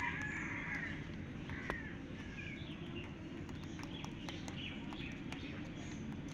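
Birds chirping in short calls over a steady low outdoor rumble, with small scattered clicks throughout.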